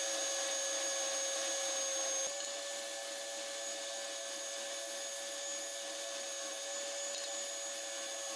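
Triton oscillating spindle sander running with a steady motor whine while wood is held against the sanding drum. About two seconds in, the sound jumps and continues slightly quieter.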